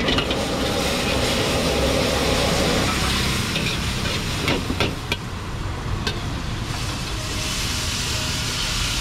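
Beef and greens stir-frying in a wok over a high gas flame: steady sizzling while a metal ladle scrapes and tosses the food, with a few sharp knocks of metal on metal about halfway through.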